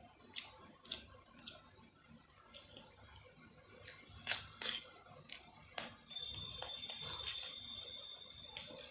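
Close-miked eating sounds during a noodle meal: a series of irregular sharp clicks and smacks, the two loudest a little before the middle. A steady high-pitched tone joins about two-thirds of the way in.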